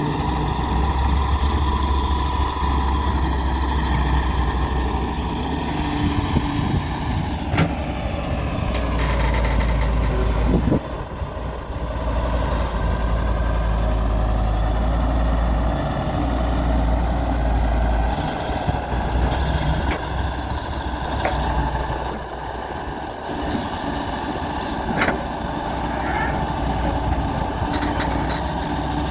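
Heavy diesel engine of a Daewoo 170W3 excavator running steadily under working load, its pitch sagging and the level dipping briefly about a third of the way in. Short hissing bursts come through around the middle and again near the end.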